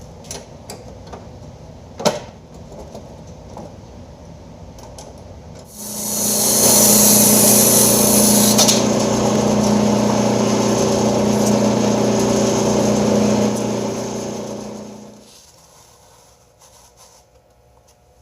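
Band saw switched on about six seconds in, running with a steady electric-motor hum and hiss. It is switched off and winds down near the end. A few light clicks and knocks come before it.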